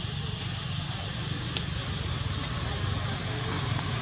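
Steady outdoor background noise: a low rumble with a thin, steady high-pitched tone above it, growing slightly louder near the end.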